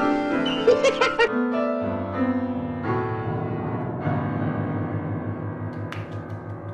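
Grand piano being played, with a quick jumble of struck notes about a second in as a cat steps onto the keys, then held notes ringing on and slowly fading.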